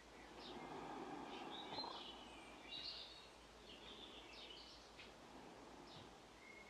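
Faint birdsong: scattered short chirps and whistled calls from small birds, over a low outdoor background hush.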